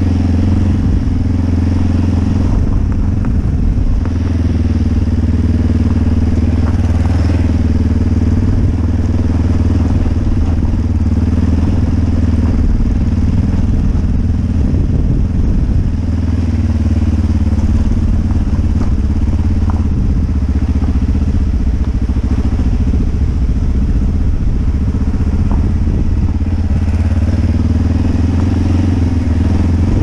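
Dual-sport motorcycle engine running steadily at low to moderate revs, its note rising and falling a little with the throttle, over the rumble and crunch of tyres on a loose gravel track.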